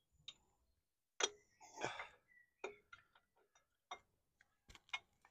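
Scattered light clicks and taps as parts at the front of a BMW R1100R's engine are handled and worked loose, with a brief rustle about a second in and the clicks coming more often in the second half.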